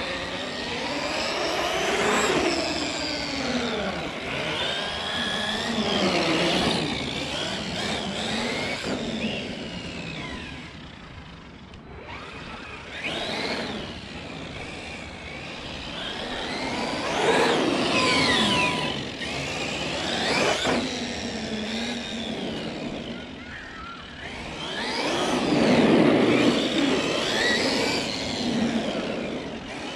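Traxxas X-Maxx RC monster truck's brushless motor and drivetrain, fitted with speed gearing, whining as it is driven. The whine rises and falls in pitch again and again with each burst of throttle and slowdown, and swells loudest twice in the latter half.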